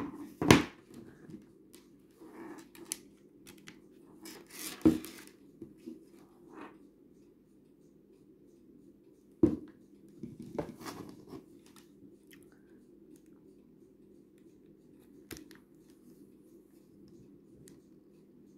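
Unboxing handling sounds: scattered knocks and clicks, with a short stretch of rustling or scraping of packaging about five seconds in, over a steady low hum.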